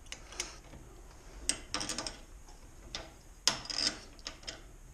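A wrench working the chain-tension adjustment nuts on a garage door opener: scattered metallic clicks and scraping, in short clusters.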